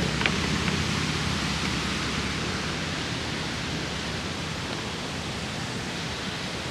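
River water rushing through a rocky gorge: a steady, even hiss that grows slightly fainter.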